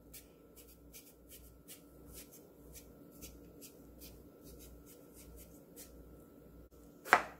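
A chef's knife shaving thin strips of skin off a hand-held cucumber, heard as a quiet run of short scraping strokes, about three a second. A louder click comes near the end.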